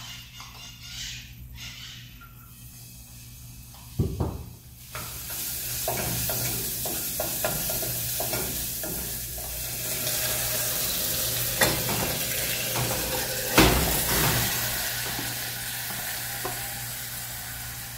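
Hot olive oil in an aluminium saucepan starts sizzling steadily about five seconds in, after a knock, as the pan's contents are sautéed. It is stirred with a spoon, with clicks and a couple of knocks against the pan.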